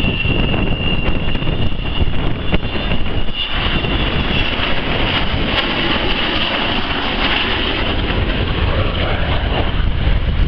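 Avro Vulcan's four Rolls-Royce Olympus jet engines during a flypast: a loud rumble with a high, steady whine that grows stronger about four seconds in. Wind buffets the microphone.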